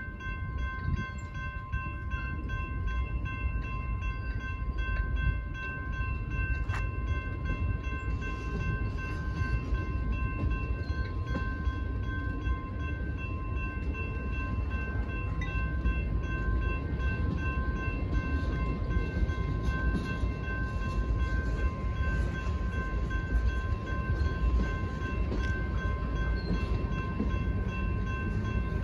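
Freight cars rolling past at a grade crossing, a continuous low rumble of wheels on rail. Over it the crossing's warning bell rings steadily at a high pitch.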